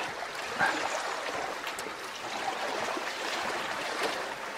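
Steady rushing of moving water, with a few faint clicks and one short knock about half a second in.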